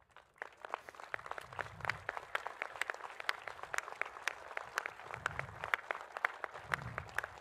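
Audience applauding with many separate, distinct claps, beginning sparsely about half a second in and filling out within the first second or so.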